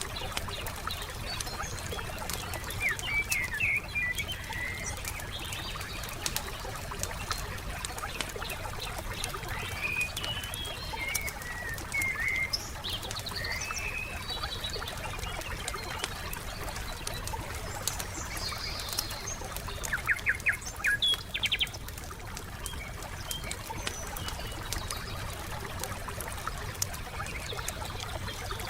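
Wood fire crackling with frequent small pops, under birds chirping and calling. A quick run of chirps about twenty seconds in is the loudest moment, over a low steady rumble.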